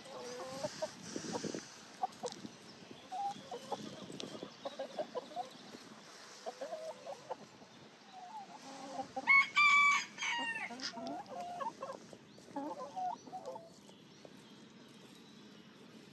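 Chickens clucking in short, scattered calls, with a rooster crowing once about nine seconds in, the loudest sound. A few more clucks follow the crow, then the calls die away near the end.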